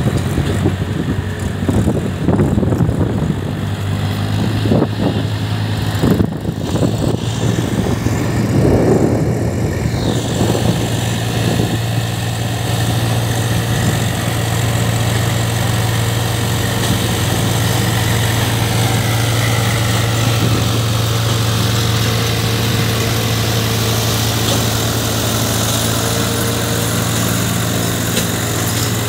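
Swaraj tractor's diesel engine running, uneven with louder surges for the first ten seconds or so, then running steadily.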